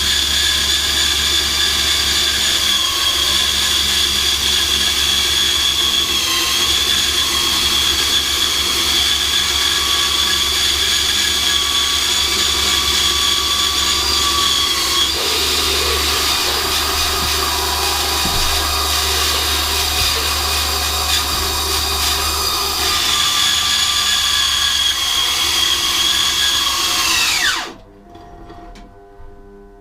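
Battery-powered Einhell band saw running with a steady high motor whine, its tone shifting in the middle stretch, then switched off near the end and winding down, the pitch falling away to a stop.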